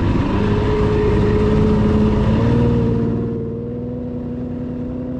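Outboard motor of a fishing boat running under way, its steady drone creeping slightly higher in pitch over a rush of wind and water that drops away about three seconds in.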